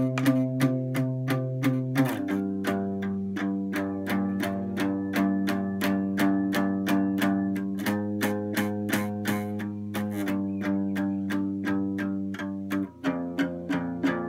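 Guitar music: a steady run of quickly repeated plucked notes over held chords, changing chord every few seconds.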